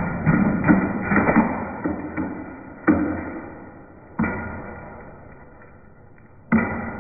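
Brittle plastic fan blades striking a screwdriver pushed into a running fan and shattering: rapid clattering, then two sharp cracks about three and four seconds in, each fading away, and another burst of clattering near the end.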